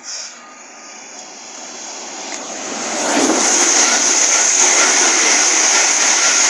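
East Midlands Railway passenger train passing close at speed: a rush of wheel and air noise that builds over the first three seconds, then stays loud and steady as the carriages go by.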